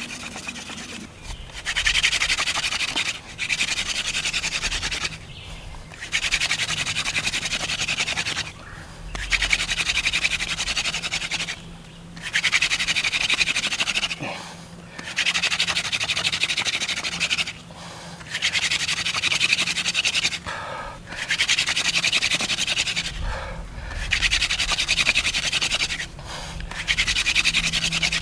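Yucca hand-drill spindle spun between the palms into a yucca hearth board, grinding out dust for a coal. A scratchy whirring hiss comes in runs of about two seconds, about ten times, each broken by a short pause as the hands go back to the top of the spindle.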